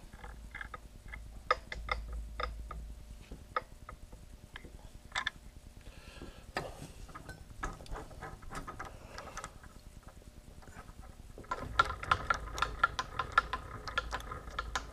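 Scattered light metallic clicks and ticks from a small milling machine's table feed and tooling being worked by hand. About two-thirds of the way through they become a faster, denser run of rattling ticks.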